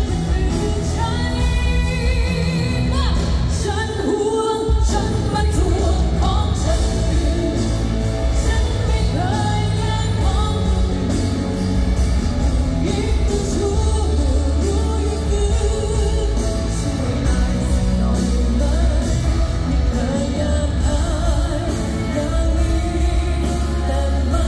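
A woman singing live into a handheld microphone over a pop-rock band with heavy bass and a steady drum beat, heard through the concert PA in a large hall.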